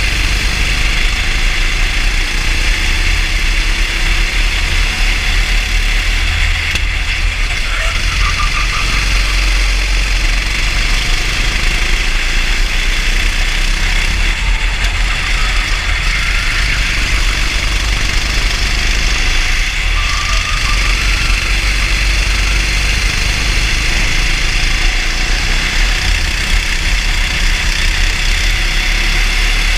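Racing kart's engine running steadily at speed, heard from a camera mounted on the kart, over a constant low rumble.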